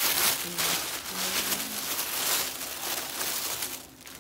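Tissue paper crinkling and rustling as it is pulled and handled off a wrapped package, dying down near the end.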